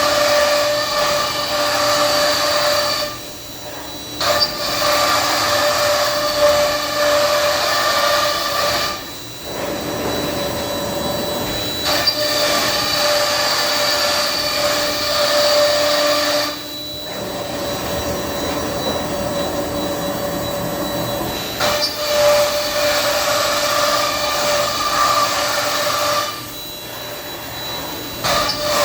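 Thermwood CS-45 CNC router running: a steady high spindle whine over cutting noise. The sound goes in passes, dipping or turning rougher for a few seconds about four times as the machine changes moves.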